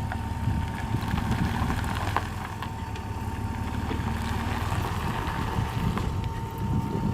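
Pickup truck engine running steadily at low speed while the truck is manoeuvred into position, with wind noise on the microphone.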